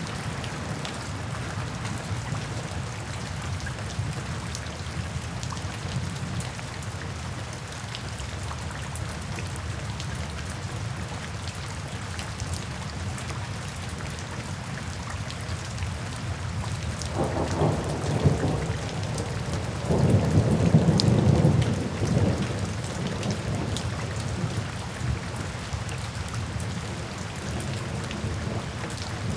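Steady rain falling with scattered drop ticks; about seventeen seconds in, a roll of thunder rumbles low for several seconds, loudest a few seconds later, then fades back into the rain.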